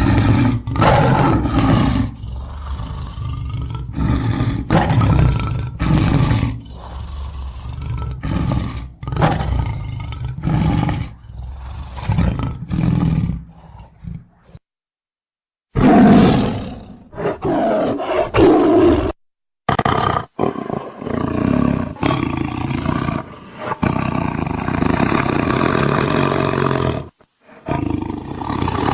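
Tiger growling and roaring in a long run of rough, deep calls, one after another. It breaks off into dead silence for about a second midway, and briefly twice more later.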